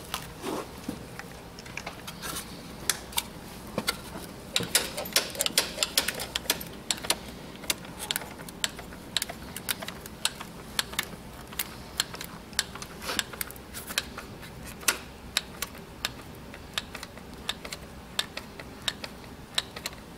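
Hand-squeezed dispensing gun clicking as its trigger is worked, driving Equi-Pak pour-in pad material from a two-part cartridge through a mixing tip into a horse's hoof. Sharp clicks come in quick clusters at first, then more spaced out.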